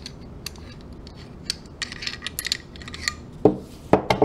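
Steel parts of a Beretta 92 pistol clicking and scraping as it is field-stripped by hand: the recoil spring and guide rod come out of the slide and the barrel is lifted free, with a few louder knocks near the end.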